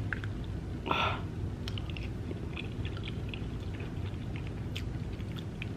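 Close-miked chewing of soft, creamy macaroni and cheese, with wet mouth clicks and lip smacks scattered through it.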